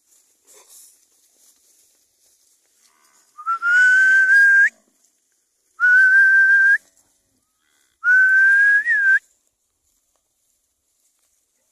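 A person whistling to drive a herd of cattle: three loud, long whistles of about a second each, each held on one tone that rises slightly, the last ending with a quick upward flick.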